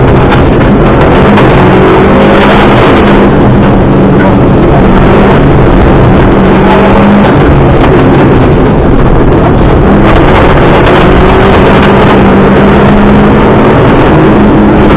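Subaru Impreza rally car running hard on a gravel special stage. The engine is loud and constant, its note wavering slightly, over heavy road noise.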